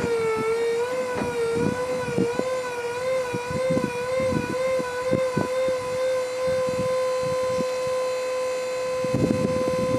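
Hydraulic pump of a trailer's power ramp running under load as the ramp unfolds and lowers: a steady whine that wavers slightly at first, then holds one pitch.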